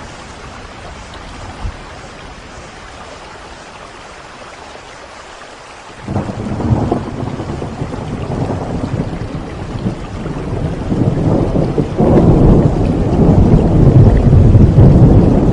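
Steady rain falling, then about six seconds in a roll of thunder breaks in and rumbles on, swelling louder again near the end.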